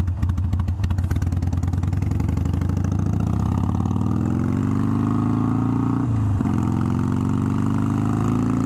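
Harley-Davidson Sportster V-twin engine under way, pulling from low revs with its separate firing pulses audible at first, its pitch climbing steadily. About six seconds in the pitch breaks and drops at a gear change, then climbs again.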